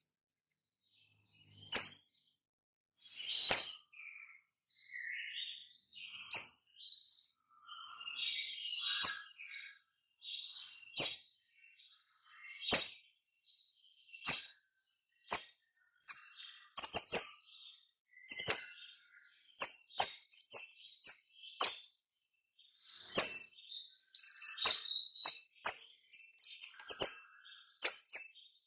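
Caged kemade songbird giving short, sharp, high-pitched calls in the rapid 'nembak' style, one every second or two at first, then in quicker clusters from about halfway, with softer lower chirps in between.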